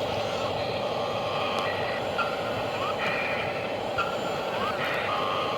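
Excavator machinery running steadily, with short beeps and quick rising chirps sounding over it every second or so.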